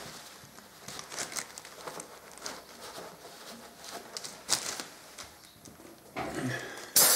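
Paper shop towels rustling and rubbing as the underside of a motorcycle engine is wiped clean, with small scrapes and clicks. Just before the end a compressed-air blow gun starts a loud, steady hiss.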